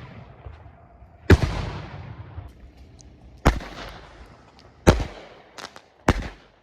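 Consumer fireworks going off: four loud, sharp bangs at uneven intervals of one to two seconds, each fading away over a second or so, with a couple of smaller pops between the last two.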